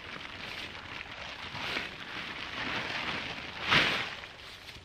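Synthetic tent fabric rustling and crinkling as a tent is pulled from its bag and shaken open, with one louder swish about four seconds in.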